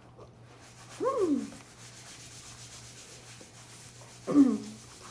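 A person with a mouthful of hot dumpling making two short wordless vocal sounds, one about a second in that slides down in pitch and a louder one near the end.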